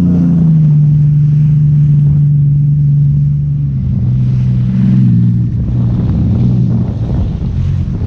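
Jet ski engine running steadily, its note dropping about four seconds in, with wind buffeting the microphone and water splashing more loudly toward the end.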